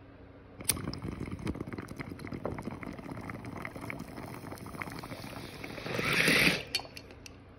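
A lighter is struck with a click, then a glass bong's water bubbles steadily as a hit is drawn through it. The bubbling swells into a louder, hissing rush and stops shortly before the end.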